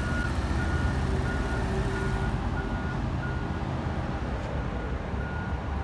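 Low rumble of a 2011 Audi A6 sedan's engine and tyres as it rolls slowly up at walking pace, with a short electronic beep repeating about twice a second.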